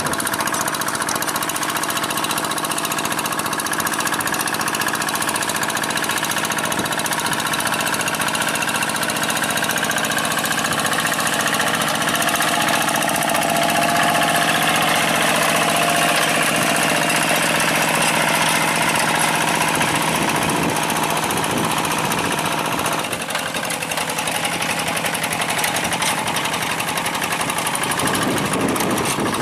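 A two-wheel hand tractor's single-cylinder diesel engine running steadily under load as it pulls its tilling wheels through paddy mud, with a slight dip in level about twenty-three seconds in.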